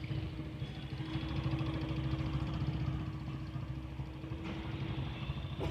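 Small motorcycle engine running steadily at low revs while the bike is ridden slowly through tight turns.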